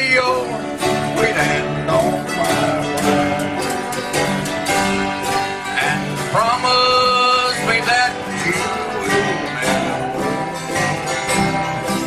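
Live acoustic bluegrass: several acoustic guitars strumming a steady country rhythm, with a man singing the melody at times into a microphone.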